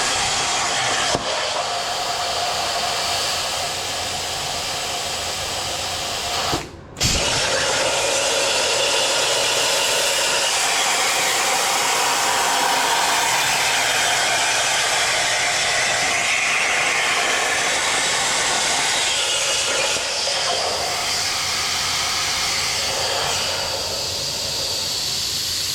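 CNC plasma cutter cutting steel: a steady, loud hiss of the arc and air stream. It cuts off for about half a second some seven seconds in, then restarts and runs on until it stops right at the end.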